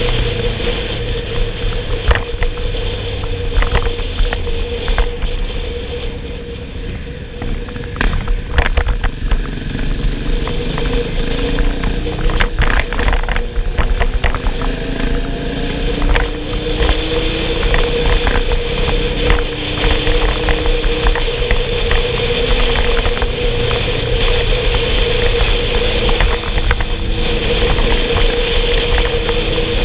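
Motorcycle on the move, heard from the rider's own bike: engine running with a steady hum under a rush of wind on the microphone, the pitch gliding up and down a few times as speed changes.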